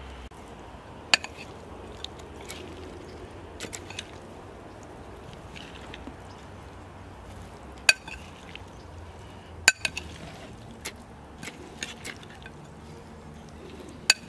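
Metal spoon stirring a chopped beetroot and bean salad in a glass bowl, knocking against the glass in sharp clinks every second or few, irregularly spaced, the loudest near the middle and near the end.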